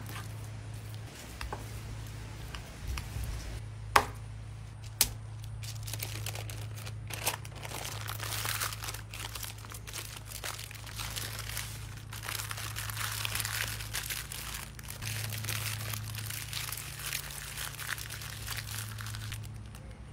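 Fork clinking against a glass bowl while mashing herb butter, a few sharp taps in the first five seconds. Then parchment paper crinkling and rustling as the butter is rolled up in it, over a steady low hum.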